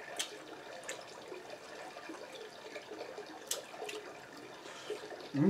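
A person eating seafood boil by hand: a few sharp, wet mouth smacks and clicks, over a steady background hiss.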